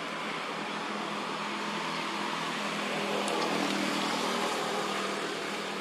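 A motor vehicle's engine running steadily, with a faint click about three seconds in.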